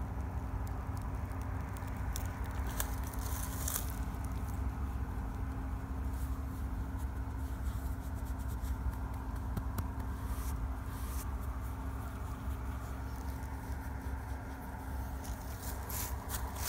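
White-tailed deer fawn chewing close to the microphone: soft wet clicks and crackles come and go in clusters over a steady low rumble on the microphone.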